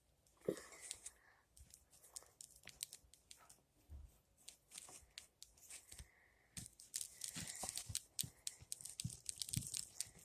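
Faint sticky crackling and clicking as a small batch of Elmer's glue mixed with saline solution is stirred and worked by hand. The crackles come thicker near the end.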